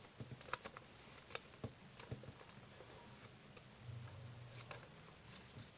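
Sheet of origami paper being handled and creased by hand: faint crinkles and a scattering of soft, irregular clicks.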